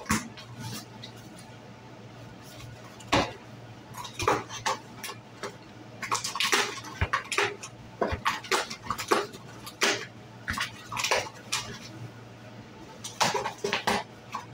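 Clear plastic sheeting lining a box crinkling and rustling in irregular bursts as a cat rolls and paws against it. The crackling is sparse at first, busiest in the middle, then flares again near the end.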